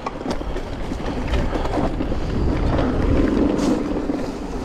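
Giant Reign E+1 electric mountain bike riding a dry woodland dirt trail: wind rumble on the microphone and tyres rolling over dirt and leaf litter, with a few sharp knocks and rattles from the bike over bumps.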